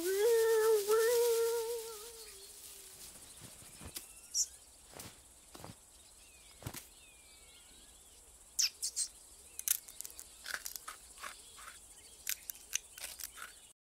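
Cartoon sound effects: a drawn-out vocal cry that slowly falls in pitch over the first two seconds, then faint countryside ambience of crickets with small chirps and squeaks and scattered soft taps.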